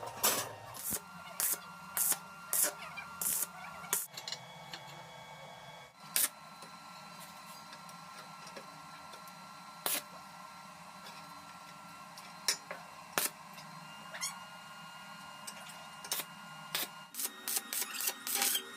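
Irregular sharp clicks and knocks, a dozen or so spread unevenly, over a faint steady hum.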